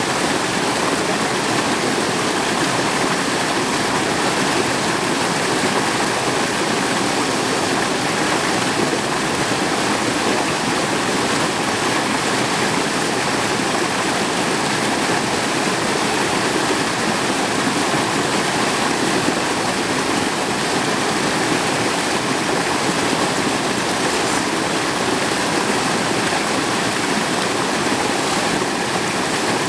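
A mountain valley stream rushing steadily, a constant even wash of water.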